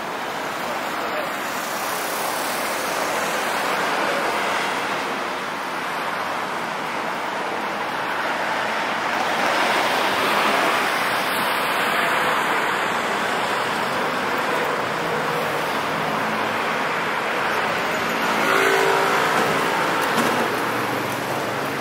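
City road traffic on wet streets in the rain: cars passing with a steady hiss of tyres on the wet road, swelling as vehicles go by about halfway through and again a few seconds before the end, where an engine is heard.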